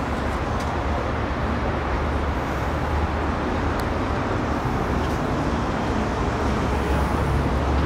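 A steady low engine-like rumble over a general outdoor din, growing a little louder near the end.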